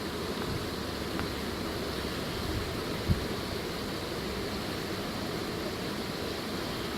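Steady rush of flowing river water, with a single low thump about three seconds in.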